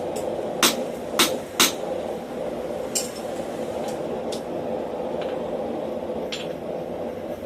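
Hand hammer striking hot steel on an anvil: three ringing blows in the first two seconds, then a few lighter, scattered taps and clinks, over a steady rushing background.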